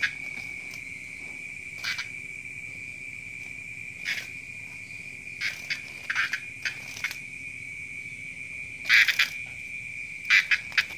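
Night insects, crickets, trilling in one steady high tone, with short sharp sounds breaking in every second or two, the loudest about nine seconds in.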